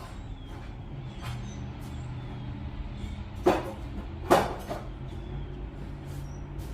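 Tools and exhaust header parts knocking during a header install: two sharp knocks less than a second apart, with a few lighter clicks, over a steady low hum.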